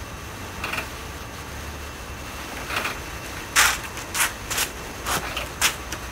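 Wooden garden swing hung on chains rocking, giving short sharp clicks and creaks, a few at first and then about every half second in the second half, over a steady low rumble.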